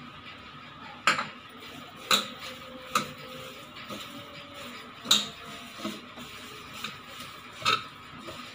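Hands tossing soya chunks in cornflour in a bowl, with about six sharp clinks and knocks against the bowl at irregular intervals.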